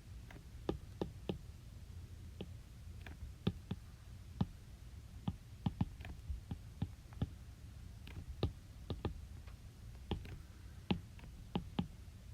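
Light, sharp clicks and taps at an irregular pace, about one or two a second, over a faint steady low hum.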